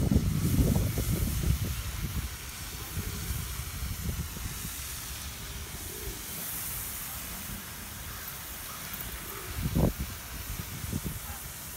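Steady outdoor hiss, with wind rumbling on the microphone for the first couple of seconds and a short gust or bump about ten seconds in.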